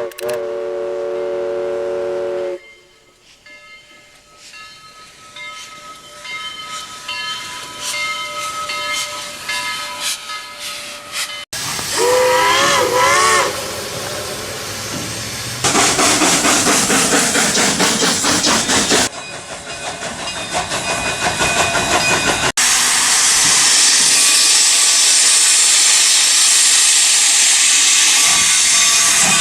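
Steam locomotive sound effects cut together. A steady chime whistle cuts off after about two and a half seconds, and a quieter stretch follows. A steam whistle is then blown with a wavering pitch a little before the middle, and from about two-thirds of the way through a loud, steady hiss of escaping steam runs on.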